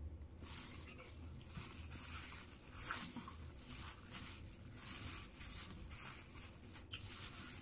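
Irregular crinkling and rustling of a disposable plastic glove and the paper wrapping as fried chicken is pulled apart by hand.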